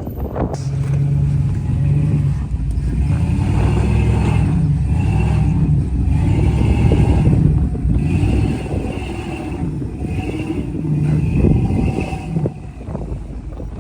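Off-road vehicle engine running under load, its revs rising and falling over several seconds.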